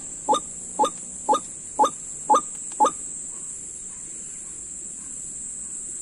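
White-breasted waterhen call played from a lure speaker: short, evenly spaced calls about two a second, stopping abruptly about three seconds in. A steady high-pitched insect drone runs underneath.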